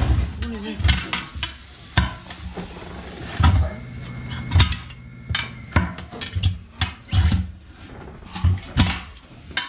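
Irregular metallic clanks and knocks of hand tools striking and levering a tractor tyre and its steel rim, about two or three blows a second.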